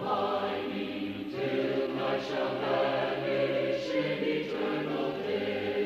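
A choir singing a slow hymn in held, chord-like notes that move from one pitch to the next every second or so.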